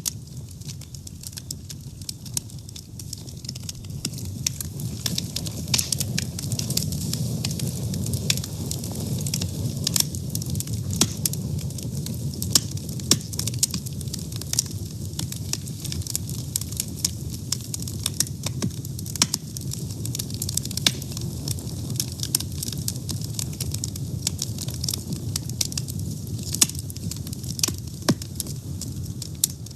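Wood fire burning, a steady low rumble of the flames with frequent irregular crackles and pops.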